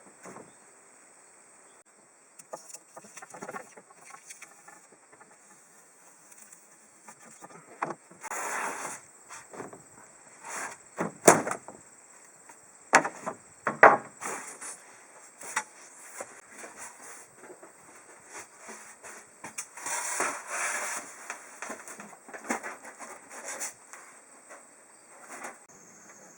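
Hands-on work fitting a brake light to a trailer frame: scattered clicks and knocks with a few short scraping or rustling bursts, over a steady faint high-pitched hum.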